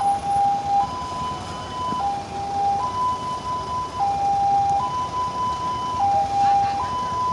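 Ambulance siren sounding a two-tone hi-lo wail, switching between a lower and a higher tone about once a second.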